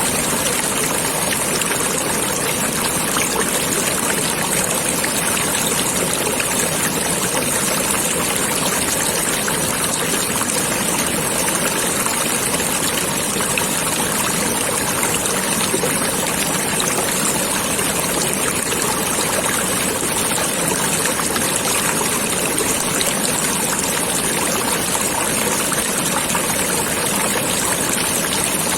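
Steady rush and trickle of flowing stream water, unbroken throughout.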